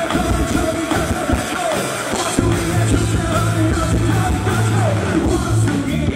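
Live rock band playing loud electric guitars through amplifiers, with a voice singing over them. The recording's sound quality is poor.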